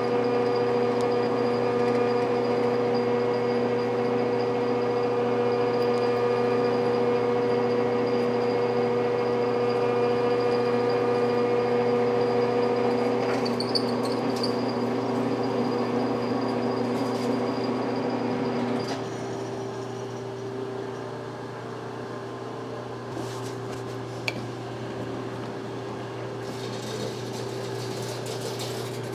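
Machine-tool motor hum, steady with several pitched tones, until about two-thirds through, when part of it shuts off and a quieter hum carries on. A single click comes a few seconds later.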